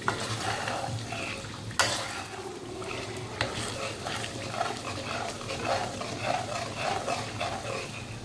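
Blended dried-chili sambal paste frying in a generous amount of oil in a pan, while a utensil stirs and scrapes through it, with two sharp knocks against the pan near 2 and 3.5 seconds in. The chili paste is being cooked down in the oil until it is done.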